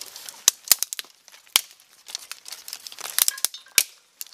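Dry twigs snapped by hand: a series of sharp cracks, irregularly spaced, with rustling of leafy stems between them.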